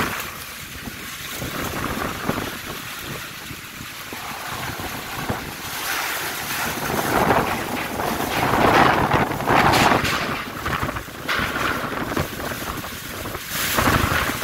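Strong storm wind buffeting the microphone in gusts. It swells loudest in the middle and again briefly near the end.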